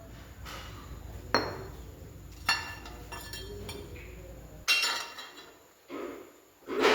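Metal tools and tractor brake parts clinking and knocking against each other, about four sharp strikes with a short metallic ring. A low steady hum underneath cuts off about two-thirds of the way through.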